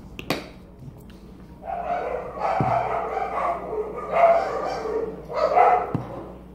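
A dog barking in short runs: a string of barks from about two seconds in, then louder single barks twice near the end. A sharp click comes just after the start.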